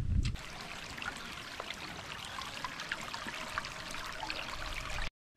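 Shallow stream of muddy water rushing and babbling through vegetation, a steady splashing flow. A brief low rumble at the very start, and the sound cuts out for a moment near the end.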